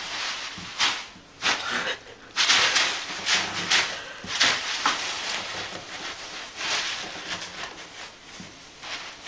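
A tub full of small white balls rustling and shifting in irregular bursts as a cat moves and burrows through them.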